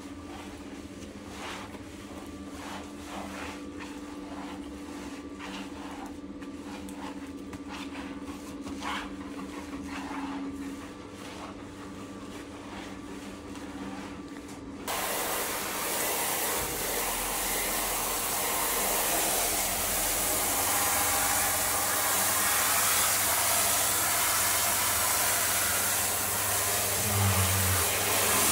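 Handheld shower spray hissing steadily as water rinses a dog's coat and runs over a tiled shower floor, switched on abruptly about halfway through. Before it, a steady low hum with faint soft rubbing strokes.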